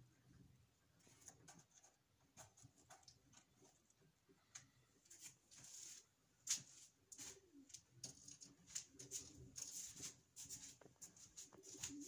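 Faint pigeon cooing: low wavering notes in the second half, over scattered soft ticks and taps.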